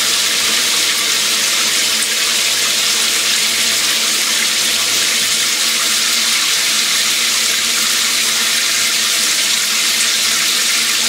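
Handheld shower head running full, its water jets spraying and splashing down into the shower as a steady, unbroken hiss.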